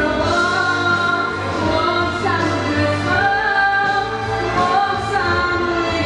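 A girl's solo singing voice through a microphone and PA, holding long notes that slide from one pitch to the next, over instrumental accompaniment.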